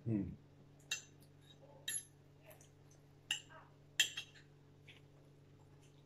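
Metal forks clinking against ceramic plates and bowls while noodles are served: a handful of sharp, separate clinks about a second apart, over a faint steady low hum.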